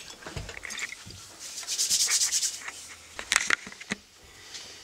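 Handling noise: cloth rubbing and rustling against a handheld camera, with a few sharp clicks about three seconds in.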